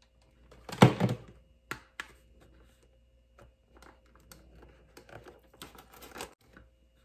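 Handling noise of cardboard craft pieces: a loud cluster of knocks and clatter about a second in, then scattered light taps, clicks and paper rustles as a paper-covered cardboard divider is pressed into a cardboard box.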